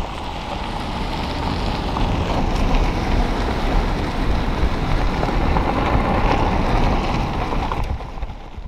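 Road and wind noise from a vehicle driving on a dirt road: a steady rushing hiss over a low tyre rumble, with a gritty patter like gravel under the tyres. It drops away suddenly near the end.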